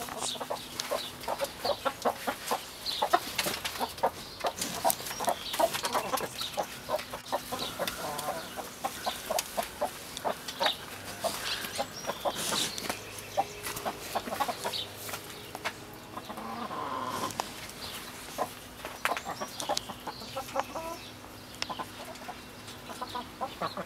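Backyard hens clucking and giving short calls, with a quick run of sharp taps in the first several seconds.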